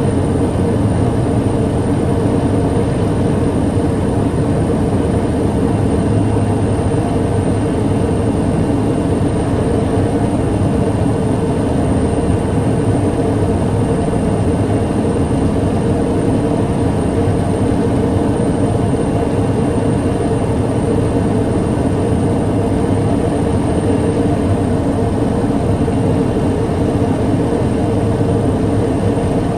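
TBM 700A's Pratt & Whitney PT6A turboprop engine and propeller running with a steady drone, with a thin high whine over it.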